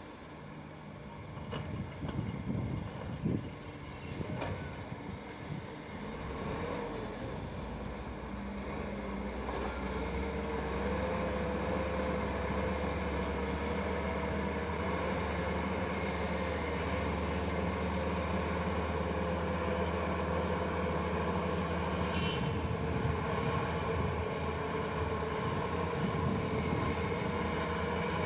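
Diesel engine of heavy earthmoving machinery running, growing louder after about ten seconds, with a wavering whine over the drone. A few knocks come in the first few seconds.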